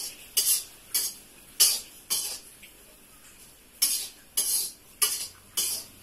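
Metal spatula scraping and stirring food around a steel kadhai, about two strokes a second, with a pause of a second or so near the middle.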